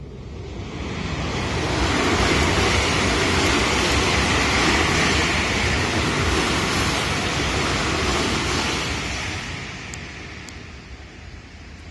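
A train passing close by at a level crossing: a broad rushing noise that builds over the first two seconds, holds steady, and dies away from about eight seconds on.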